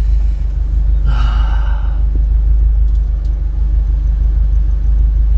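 Steady low rumble of the 2022 Subaru BRZ's flat-four engine idling, heard from inside the cabin. About a second in, the driver lets out one long breathy sigh.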